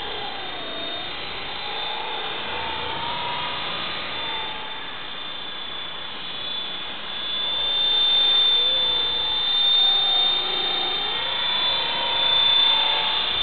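EXI 450 electric RC helicopter in flight: a steady high whine with lower rotor tones that rise and fall in pitch as it flies around.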